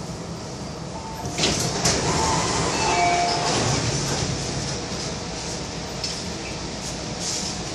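Passenger doors of an MTR Tung Chung line A-train (Adtranz–CAF electric train) and the platform screen doors sliding open at a station, with a sudden clunk and clank about a second and a half in, a few short beeps, then the steady hum of the standing train.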